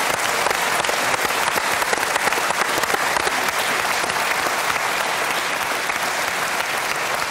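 Studio audience applauding, a dense steady clapping that holds at the same level throughout.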